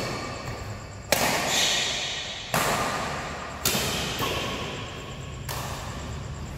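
Badminton racket strikes on a shuttlecock in a doubles rally: four sharp hits a second or two apart, each ringing on in the echo of a large hall.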